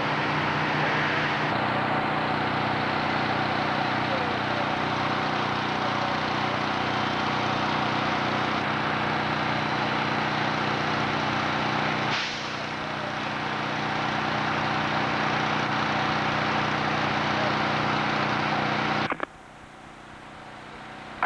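A fire engine's motor running steadily under a broad hiss, cutting off abruptly about two seconds before the end.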